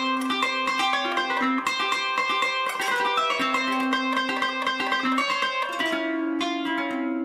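Middle Eastern plucked-string melody from a sample library: a fast run of plucked notes over longer held lower notes. The lower notes change about six seconds in.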